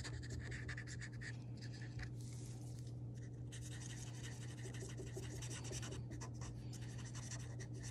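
Felt-tip marker (Mr. Sketch) scribbling on paper in rapid short back-and-forth strokes, coloring in small areas, over a steady low hum.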